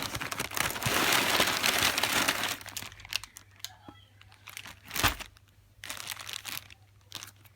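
Packing material crinkling and rustling as a shipping box is unpacked by hand: a dense stretch of crinkling for the first two and a half seconds, then scattered rustles and a single knock about five seconds in.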